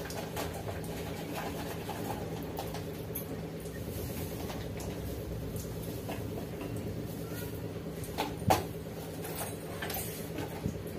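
Light clinks and knocks of steel pots and utensils being handled at a gas stove over a steady low hum, with one louder knock about eight and a half seconds in.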